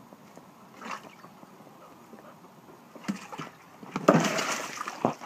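A yellow flexible plastic tub with a wet dog in it tipping over on concrete: a brief scuffle, then water sloshing and splashing out with the plastic scraping, loudest about four seconds in and ending in a sharp knock.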